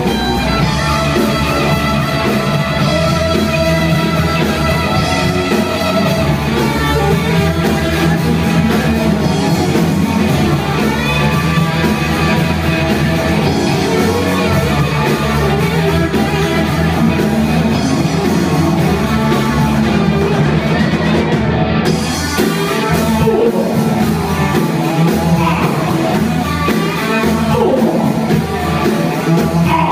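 Live rock band playing: electric guitars, bass guitar and drum kit, with a singer's voice over them.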